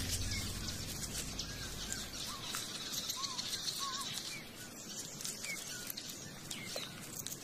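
Bush ambience of birds calling: many short chirps and whistled notes, with a few repeated arched whistles in the middle, over a steady high hiss.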